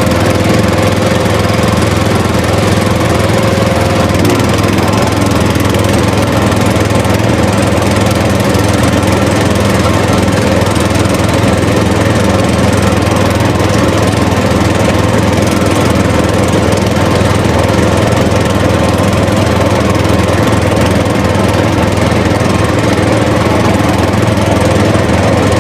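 A small motor running steadily with a loud, even buzz, typical of the drive of a DIY mini tractor-bulldozer model.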